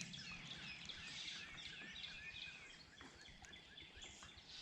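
Faint birdsong: a steady run of short, quick chirps from several small birds.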